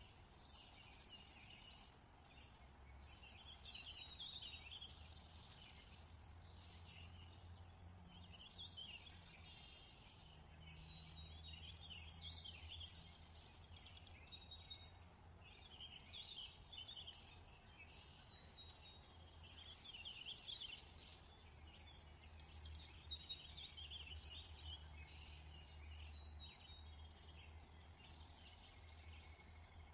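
Faint birdsong: several birds chirping and trilling in short, high calls throughout, over a low steady hum.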